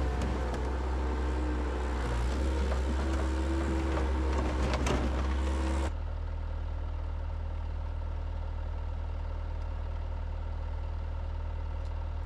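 Skid steer's diesel engine running loud and steady, with a few knocks, then cutting abruptly about six seconds in to a quieter, steady engine drone.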